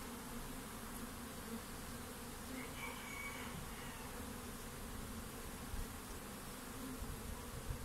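Asian honey bees (Apis cerana) buzzing steadily around an opened hive during a frame inspection, a continuous low hum.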